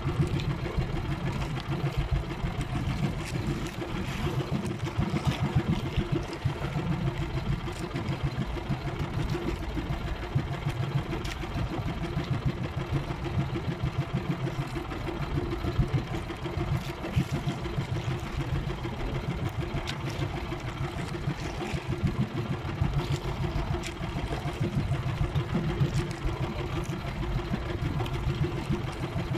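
Small fishing boat's engine running steadily at an even pitch, with water and wind noise over the hull.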